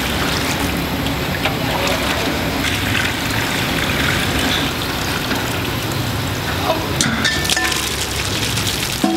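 Milky pork-bone broth pouring in a thick stream from a steel bucket into a large wok, a steady splashing gush. A few sharp clinks of metal come near the end.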